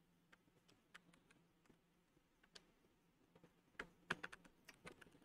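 Near silence with faint, scattered taps of computer keyboard keys, and a quicker run of taps about four seconds in.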